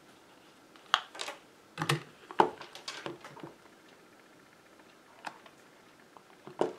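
Short clicks and taps of silicone candy molds being handled and hardened beeswax melts being popped out and knocked onto a tabletop. The taps come in a quick cluster from about one to three and a half seconds in, then a couple more near the end.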